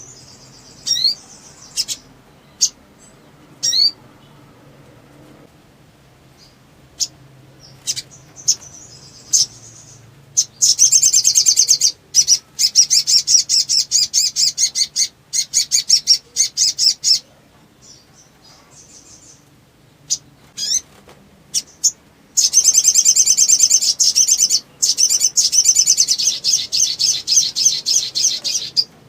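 Sunbird singing: scattered sharp, high chip notes, then two long runs of rapid, high trilling song, one starting about ten seconds in and lasting about six seconds, the other starting about twenty-two seconds in.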